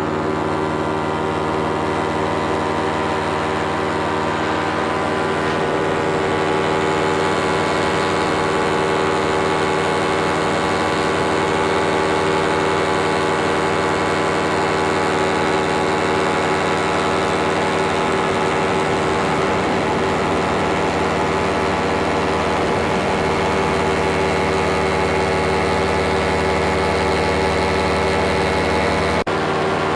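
Paramotor engine and propeller running steadily at cruise power in flight, a constant even drone from close behind the pilot. There is an abrupt splice near the end.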